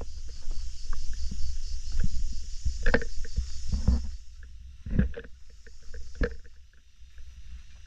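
Wind rumbling on the microphone, with a few sharp knocks or crunches; the rumble eases off about halfway through.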